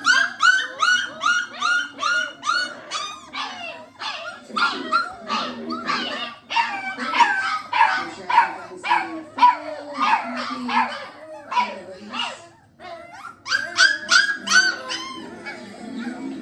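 Catahoula bulldog puppies yelping and whining in a rapid string of short, high-pitched yips, several a second, with a brief lull about twelve seconds in.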